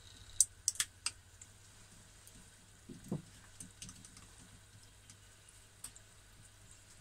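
Beef croquette deep-frying in hot oil in an electric deep fryer: scattered crackles and pops from the bubbling oil, with a quick cluster of sharp pops in the first second and a softer, lower pop about three seconds in.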